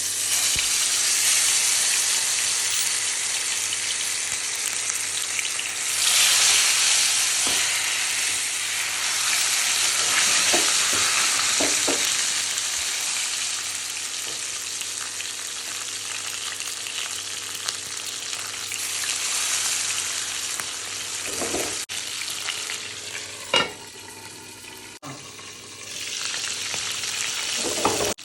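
Fish sizzling in hot oil, the sizzle starting suddenly and loudly, then swelling again a few times. A few short knocks or scrapes near the end, typical of a utensil turning the fish in the pan.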